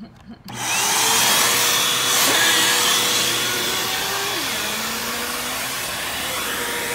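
Upright vacuum cleaner switched on about half a second in: its motor whines up to speed, then runs steadily with the hose wand in use, its tone dropping a little about four and a half seconds in.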